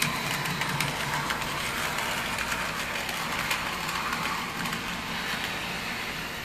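N-scale model tram running on the track: a small electric motor humming under a steady rush, with many small rapid clicks of the wheels on the rails. It starts just before and eases off slightly near the end.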